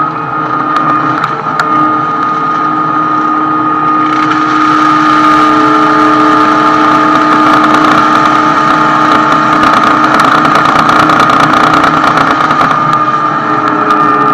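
Fecon masticator running steadily while it chews through blackberry brush, with engine and hydraulic hum, heard from inside the operator's cab. From about four seconds in it gets louder, with a dense crackle over the hum, easing again near the end.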